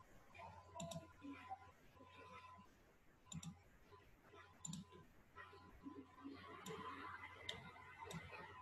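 Faint computer mouse clicks, a handful spread unevenly over quiet room tone.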